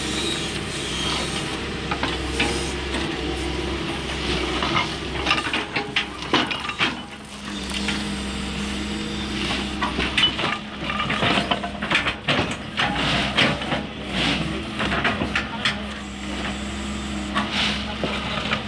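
Doosan DX140W wheeled excavator running steadily while its hydraulic sleeper-changer attachment digs into the track ballast, the stones clattering and scraping in quick irregular knocks. A steady low tone from the machine sets in about seven seconds in.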